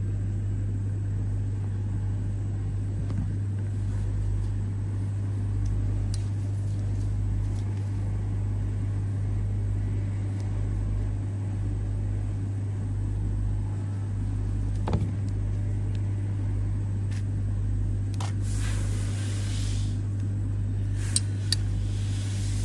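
A steady low hum with a rumble beneath it, broken by a sharp click about two-thirds of the way through, a short hiss, and two more clicks near the end.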